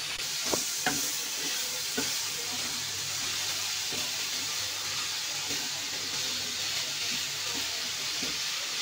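Grated papaya sizzling as it fries in hot desi ghee in a kadhai, stirred with a wooden spatula. A few light knocks of the spatula on the pan come in the first two seconds.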